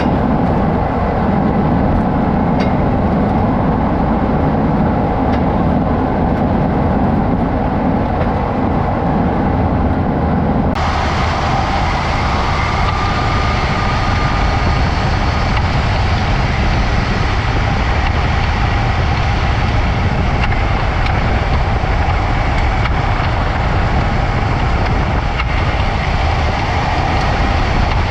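Steady road and engine noise of a 2017 Jeep Cherokee KL on the move. About eleven seconds in, the sound changes abruptly: the low rumble drops and a brighter hiss takes over.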